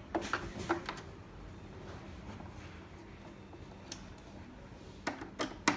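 Scattered light clicks and knocks of a screwdriver and screws handled against the opened plastic housing of a coffee machine: three in the first second, one a little before four seconds in, and a few more near the end, the last the loudest.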